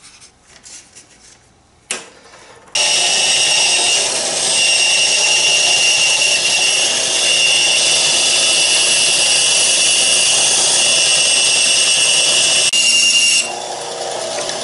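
Bandsaw running and cutting along a marked line in a hardwood strip: a loud, steady saw noise with a high whine, starting abruptly about three seconds in. About a second before the end it drops to a quieter, steady running sound.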